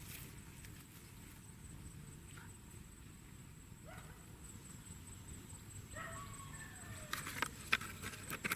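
A short animal call that falls in pitch about six seconds in, against low background noise, followed near the end by a quick run of clicks and knocks.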